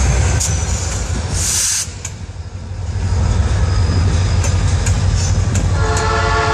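Freight train passing: covered hopper cars rolling by with a low rumble and sharp wheel clicks, and a short hiss about a second and a half in. Near the end a diesel locomotive's air horn starts to sound, holding one steady chord.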